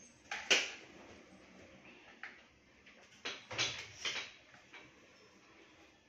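A long-handled broom and dustpan being handled and swept over a tiled floor: several sharp knocks and short clattering scrapes, the loudest about half a second in and a cluster of them around three and a half to four seconds.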